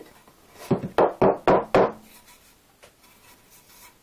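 A rough-sawn 27 mm fir board knocking against a wooden workbench as it is handled: about five sharp knocks in quick succession over a little more than a second, then only faint rustling.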